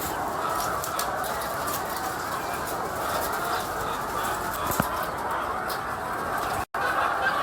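A large flock of chickens clucking and chirping all at once in a steady, dense din. The sound cuts out for an instant near the end.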